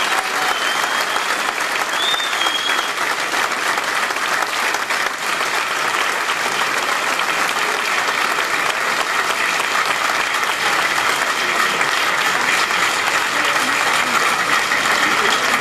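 A crowd applauding, dense steady clapping.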